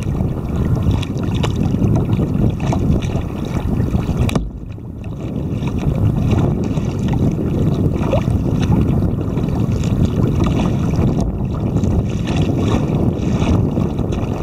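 Wind buffeting the microphone of a camera mounted on a kayak's bow, a loud, low rumbling rush, with short splashes of choppy water against the hull. The wind eases briefly about four and a half seconds in, then picks up again.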